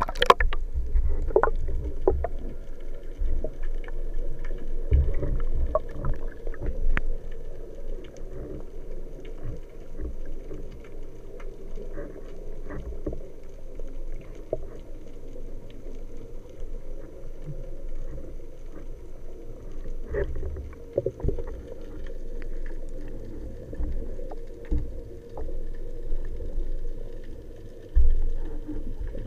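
Muffled underwater sound through a waterproof camera housing: a low rumble of moving water with scattered small clicks and knocks, and a louder low thump near the end.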